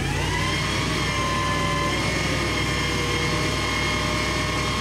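1994 GMC line truck's engine running under a steady low hum, with the whine of its hydraulics as the Simon-Telelect digger derrick boom is operated. The whine rises in pitch over the first second, then holds steady.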